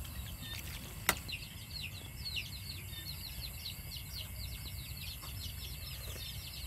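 A continuous chorus of rapid, high chirps, each a short falling note, many overlapping, over a steady low rumble, with one sharp click about a second in.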